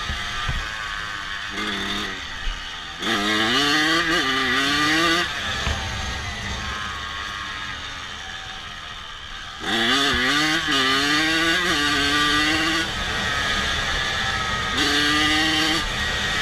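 Honda CRF250F's single-cylinder four-stroke engine running, idling between three throttle blips that rise sharply in pitch and loudness, about 3, 10 and 15 seconds in.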